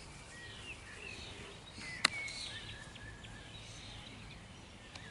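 Birds chirping throughout, with one sharp slap about two seconds in as a flying disc is caught in the hand.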